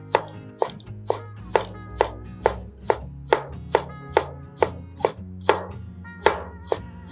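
Chinese cleaver slicing ginger into fine strips on a bamboo cutting board: evenly paced knife strokes hitting the board about twice a second, with soft background music underneath.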